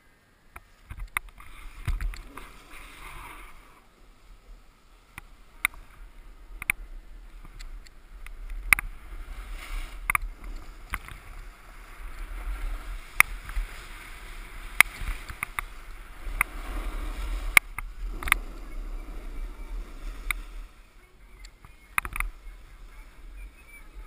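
A snowboard sliding down a groomed run: the base and edges hiss and scrape over hard-packed snow in surges as the rider turns. Wind rumbles on the helmet-mounted microphone, and sharp clicks and knocks come from bumps in the snow. The sliding starts about half a second in.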